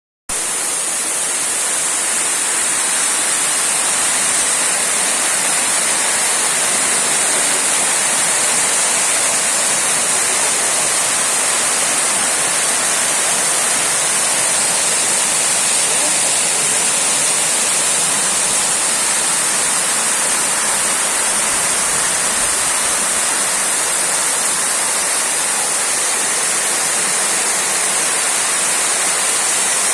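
Waterfall splashing in a steady, unbroken rush of falling water.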